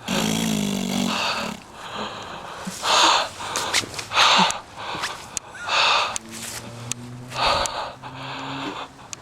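A person breathing heavily, with loud gasping breaths about every second and a half and a low voiced hum between them.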